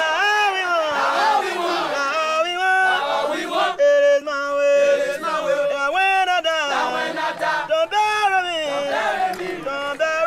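A group of young men's voices chanting and shouting together, rising and falling, with a long steady held note about four seconds in.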